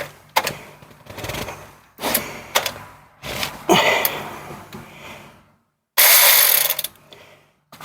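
VTEK V116-1 16.8V cordless ratchet run in several short trigger bursts against a tight oil drain plug; the motor strains and cannot break the plug loose by itself. The loudest and steadiest burst comes about six seconds in.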